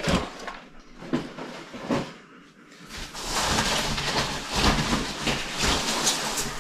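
Rummaging in a large cardboard box: a few knocks of cardboard boxes being handled in the first two seconds, then about three seconds of busy rustling and scraping as boxes slide against each other and the carton.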